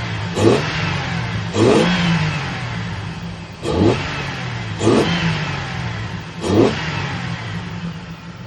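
Supercharged Hemi V8 of a Dodge Hellcat idling and having its throttle snapped five times, each blip a quick rise in revs that falls back to idle. The engine is running with cylinder 1 getting no fuel, so that cylinder is misfiring.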